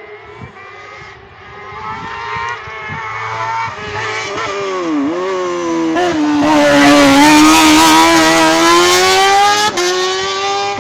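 Car cross buggy's engine approaching at racing speed and growing louder. Its note drops about five seconds in as it slows for the bend, then rises steadily as it accelerates through, loudest about seven seconds in, with a sharp crack near the end.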